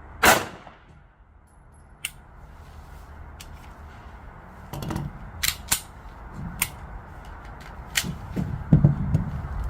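A single loud handgun shot about a second in, followed by a scattering of much quieter sharp clicks and knocks.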